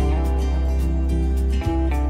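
Background music: held chords over a deep sustained bass note, with a brief dip near the end.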